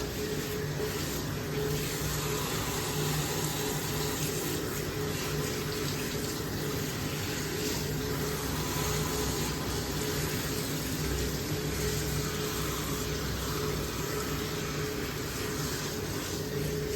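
Bath water running steadily from a tap, with a low steady hum underneath.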